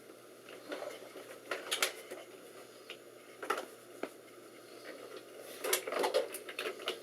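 Scattered clicks and light clattering from hands working on a desktop computer, in a few short clusters with the densest near the end.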